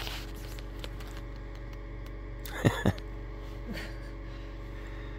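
A steady low hum, with two soft thumps in quick succession about halfway through and a fainter one just after.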